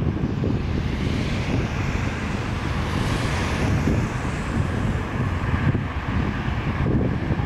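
Jet engines of a departing Boeing 747 at climb power: a steady low rumble with a hissing rise in the middle, and wind buffeting the microphone.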